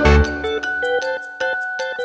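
Background music: a light melody of short, evenly paced notes, with a deep bass note at the start.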